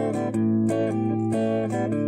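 Fender Mustang electric guitar with P90 pickups played through the channel one input of a Peavey XR 680C PA mixer amp and a 30-watt speaker, chords strummed and picked a few strokes a second. It is a sound test of the serviced amp channel, giving a nice clean tone.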